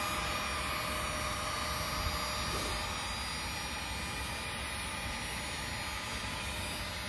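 Electric heat gun running steadily, its fan giving an even rushing blow with a faint steady whine, as it heats PVC pipe to soften it for bending.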